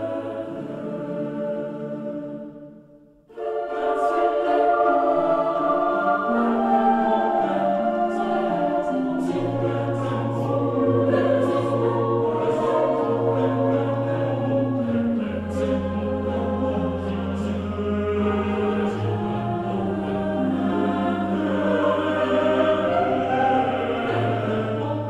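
A choir singing. One piece fades out about three seconds in and another begins, with long held low bass notes under the upper voices.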